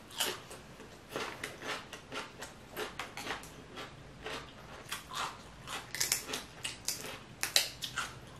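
Kitchen scissors snipping through a boiled crab leg shell, a run of short crunching clicks, the sharpest about six to seven and a half seconds in, with some chewing and shell handling around them.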